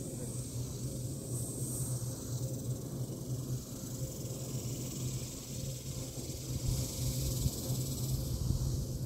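Open-air ambience: low, uneven wind rumble on the microphone under a steady high hiss, with no distinct events.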